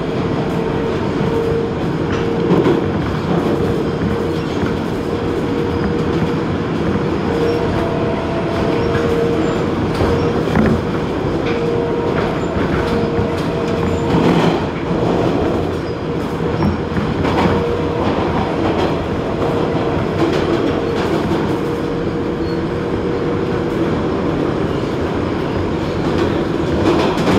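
New York City 7 express subway train running at speed, heard from inside the car: a loud steady rumble of wheels on rail with a steady whine over it and a few louder clacks.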